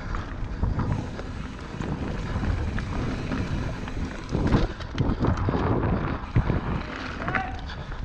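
Wind buffeting the camera microphone over the rumble of mountain bike tyres rolling on a rough dirt trail, with short knocks and rattles from the bike over bumps, heaviest from about halfway through.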